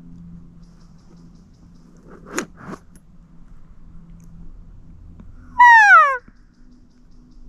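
Elk cow mew: one short, loud call falling in pitch, about five and a half seconds in. Two short knocks come about two seconds in.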